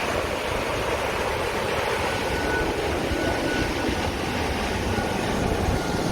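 Waterfall dropping off a cliff into the sea: a steady rush of falling water. A faint thin high tone comes and goes from about two seconds in.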